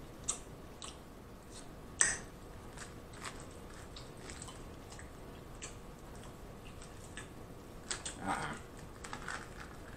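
Boiled crawfish being eaten close to the microphone: scattered short clicks and crunches of shells being picked and broken, with chewing. A sharper crack comes about two seconds in, and the sounds bunch together near the end.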